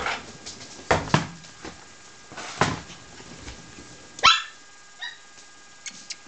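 Seven-week-old puppies barking and yipping as they play-fight: a handful of short, separate barks, with a sharper high yelp about four seconds in.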